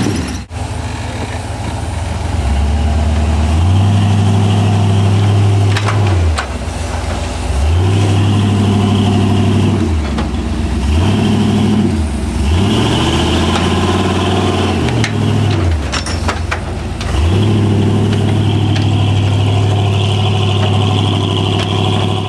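Off-road rock-crawling rig's engine revving repeatedly under load, climbing and dropping back in pitch many times as it works over rocks, with now and then a sharp knock.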